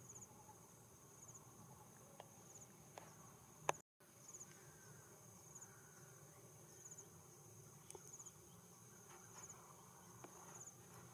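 Insects, cricket-like, chirping faintly: a steady high trill with short pulsed bursts about once a second. A sharp click sounds a little past a third of the way in.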